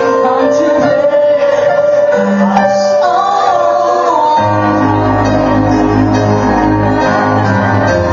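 Live band with a singer singing into a microphone; about four seconds in, heavy bass and the full band come in under the voice.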